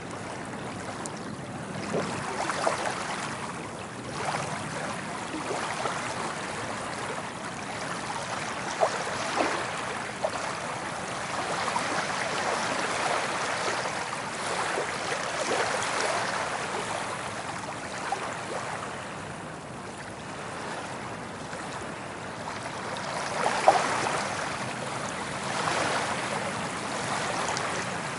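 Soft ocean waves washing up on a beach: a steady hiss of surf that swells and eases every few seconds, with small splashes and trickling as each wave breaks.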